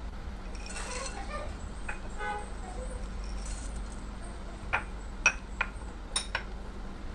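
Light clinks of hard, dry snack ingredients or a utensil against a glass mixing bowl: about five short sharp clicks in quick succession in the second half, over a low steady hum.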